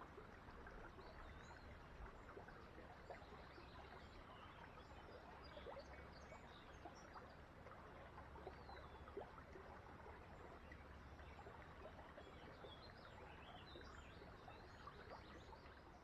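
Faint steady rush of a small, shallow woodland stream, with many brief, faint bird chirps scattered over it.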